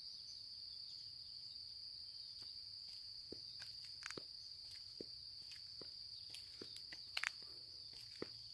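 A steady high-pitched insect chorus, with faint, irregular footsteps on the path.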